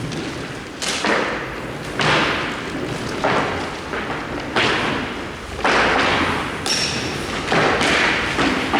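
Hockey shots: about seven hard thuds and slams, one every second or so, each followed by a short echoing tail, with one brief high ring a little over halfway through.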